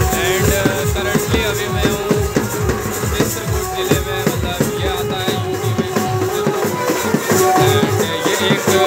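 Live folk band music for a naagin (snake) dance: frame drums beaten in a fast, even rhythm of about four strokes a second, with jingling hand cymbals and a held melody line over the top.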